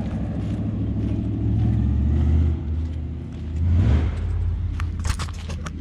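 Tow vehicle's engine running at low speed as it pulls an enclosed car trailer along a gravel driveway: a steady low hum that swells about two seconds in and again around four seconds. Near the end come a few sharp clicks and knocks.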